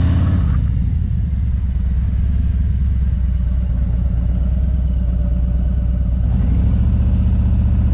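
Motorcycle engine running steadily at low revs, a deep even throb, growing a little fuller in the last second or so.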